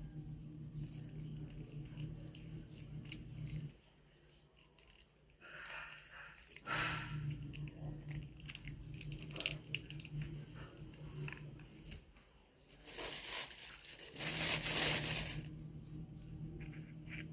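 Crinkling and tearing of food packaging, with scattered small clicks and two louder rustling spells, about six seconds in and again around thirteen to fifteen seconds. A low steady hum runs underneath and drops out twice.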